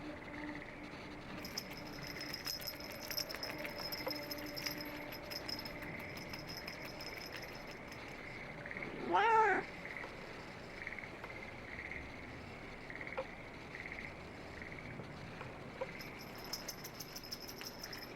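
A white house cat meows once about halfway through: a short, wavering call. Faint high-pitched chirping and ticking sound in the background.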